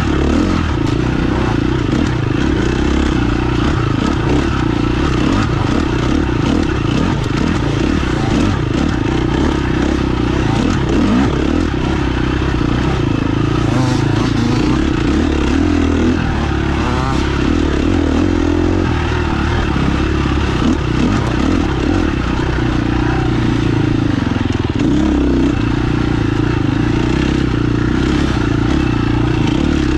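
Motorcycle engine running on a woods trail ride, its pitch shifting with the throttle, with rattles and knocks from the bike over rough ground.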